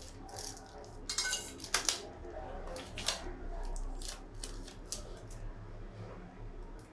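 Small hard objects being handled on a work surface: a string of light clicks, taps and knocks, with a short scraping rustle about a second in.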